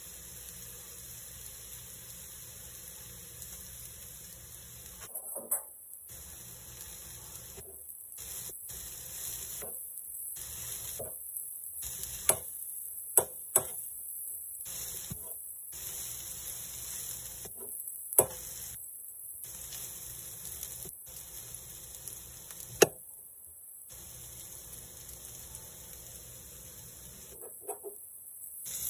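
Broccoli and melting butter sizzling on an electric griddle with a steady hiss. A metal spatula tosses it and clicks sharply against the griddle plate about six times.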